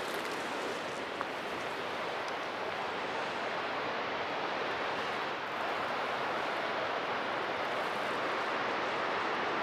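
Steady rushing wind: an even hiss with little rumble, building slightly louder.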